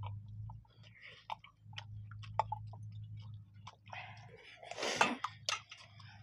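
People chewing and smacking their lips as they eat rice and dal by hand, with small clicks and clinks from steel plates and a steel tumbler, and one louder rustling burst about five seconds in.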